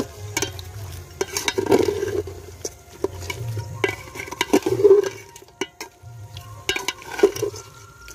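A long metal spatula stirring and scraping chunks of mutton around a large aluminium cooking pot, with irregular knocks against the pot and a light sizzle as the meat fries in its spice paste.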